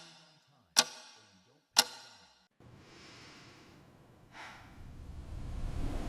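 Sound-effect ticks, like a clock, exactly a second apart, each ringing briefly, stopping after about two seconds. A soft hiss follows, then a whoosh about four seconds in and a low rumble that builds steadily.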